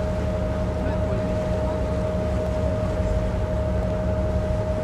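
Ship's engine running with a steady low drone and a constant whine above it.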